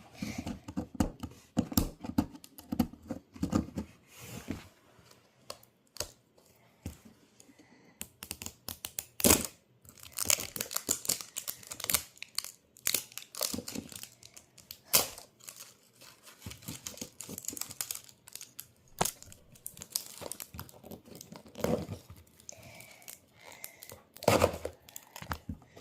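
Plastic packaging on a toy mystery egg being torn and crinkled by hand, an irregular run of crackles, rips and sharp clicks.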